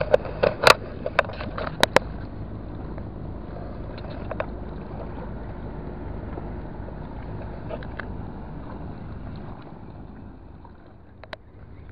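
Several sharp clicks and knocks in the first two seconds as a bucket and mesh keepnet are handled, over a steady low rumble that fades slightly near the end.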